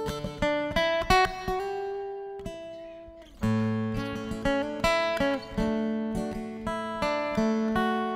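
Acoustic guitar strumming and picking chords, an instrumental lead-in to a hymn. The playing fades about three seconds in, then comes back louder with deeper notes underneath.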